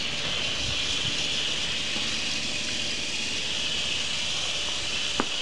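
Steady hiss of water streaming onto a freshly planted potted tomato plant as it is watered, with a brief click about five seconds in.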